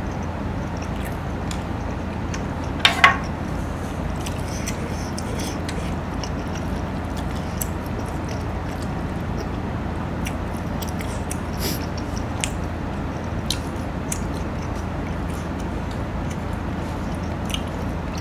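Close-miked eating: chewing and small clicks of a metal spoon against a stone bowl, with one sharper clink about three seconds in. A steady low hiss sits underneath.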